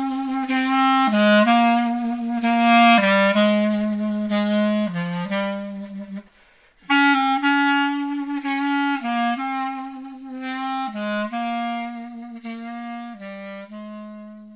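Instrumental music: a single melodic instrument plays an unaccompanied tune in two phrases, with a short break about six seconds in. The second phrase fades away near the end.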